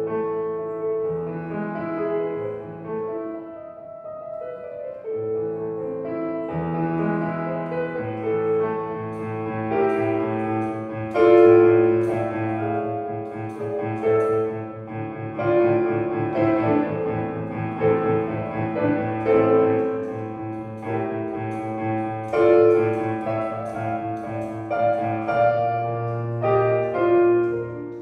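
Solo street piano being played: a slow passage of held chords over bass notes that grows fuller and busier about a third of the way through.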